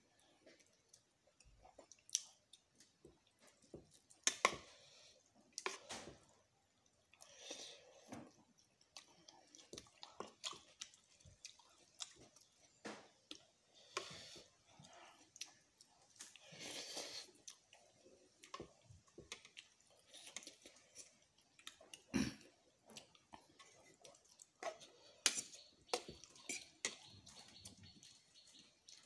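Close-up eating sounds: chewing instant noodles and rice, with irregular sharp clicks of a metal spoon against a plastic bowl and a few short wet slurping noises.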